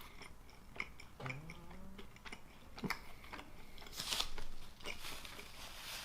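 Close-miked chewing of pizza, with scattered wet mouth clicks and a short hum a little over a second in.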